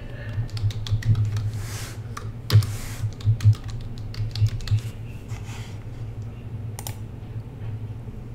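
Computer keyboard typing: quick, irregular keystrokes for about five seconds, then only a few, with one louder click near the end. A steady low hum runs underneath.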